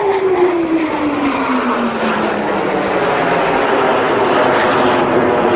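Four-jet formation passing overhead, a steady jet-engine roar with a tone that falls in pitch over the first couple of seconds as the jets go by.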